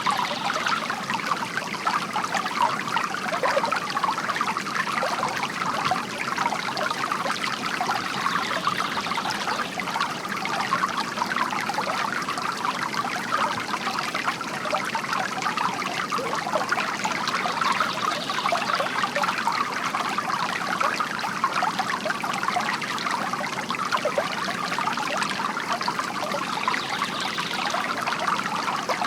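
Water trickling and splashing steadily from a bamboo garden fountain.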